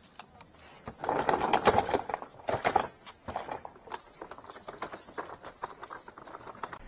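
Hand truck loaded with a drain-cleaning machine and metal equipment cases being wheeled over tiled paving, its wheels and load rattling and clattering. The clatter is loudest about a second in and lasts a couple of seconds, then gives way to scattered clicks and knocks.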